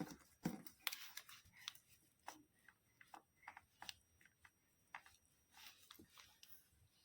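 Faint, irregular small clicks and taps, a little over a dozen, most pronounced in the first second and a half.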